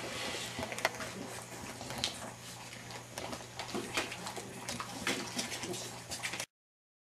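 English bulldog puppy shuffling and nosing about on blankets, with rustling and scattered soft clicks over a steady low hum. The sound cuts off abruptly near the end.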